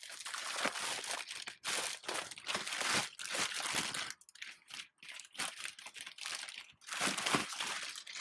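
Thin clear plastic bag crinkling and rustling in uneven bursts as it is pulled off a router by hand, with a few short pauses.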